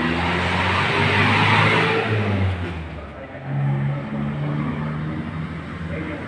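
Motor vehicle engines running in road traffic, loudest for the first couple of seconds, easing off around three seconds in, then picking up again.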